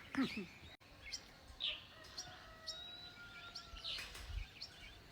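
Faint outdoor ambience with birds chirping: short scattered chirps and a few thin whistled notes, with some light clicks.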